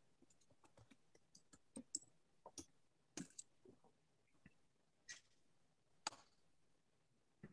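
Near silence broken by faint, irregular clicks, about fifteen of them, unevenly spaced.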